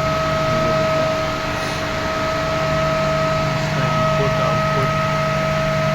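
Steady machinery hum with a constant high-pitched whine over it, unchanging throughout.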